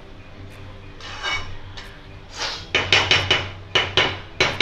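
Metal spatula scraping and knocking against a stainless-steel kadai as chopped green onions are stirred. One softer scrape about a second in, then from about halfway a quick run of strokes, three or four a second.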